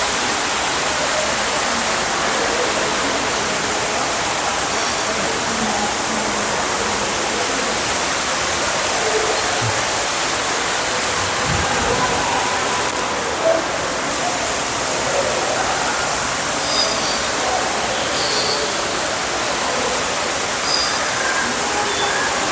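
Steady rushing of falling water, with faint indistinct voices and a few short high chirps in the second half.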